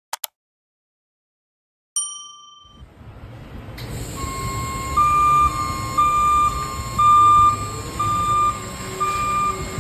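Two quick mouse-click sound effects, then a bell-like notification chime about two seconds in. From about three seconds the rumble of a garbage truck and the transfer station fades in, with a truck's backup alarm beeping about once a second, alternating between two close pitches.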